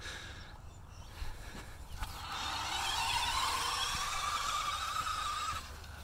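Small electric balance bike's motor whining as it pulls away. The whine rises slowly in pitch for about three seconds, with a hiss alongside, and cuts off near the end.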